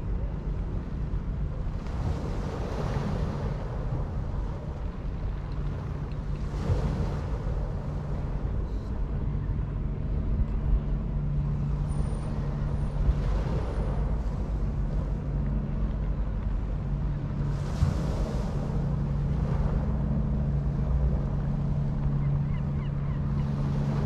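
Sea waves breaking and washing on the shore, swelling about every five seconds, over a steady low drone.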